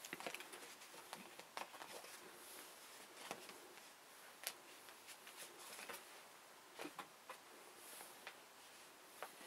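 Faint handling of photo prints and paper: soft rustles and a scattering of light ticks as prints are slid and laid down on a bed cover, otherwise near silence.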